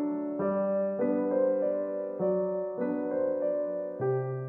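Background music: a gentle piano or electric-piano tune playing held notes and chords that change every half second to a second.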